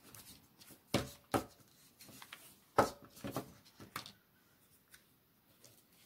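Craft pieces and a clear plastic globe handled on a hard tabletop: about half a dozen sharp taps and knocks between one and four seconds in, the loudest near the middle.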